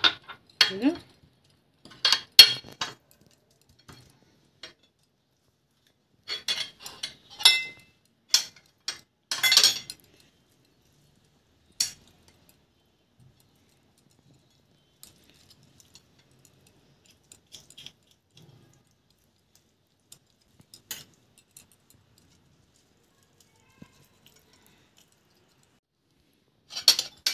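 Metal fork and spoon scraping and clinking against a ceramic plate while mixing a wet garlic and spice paste. The scraping is busy through the first ten seconds, then only a few light clinks, with a louder burst of scraping near the end.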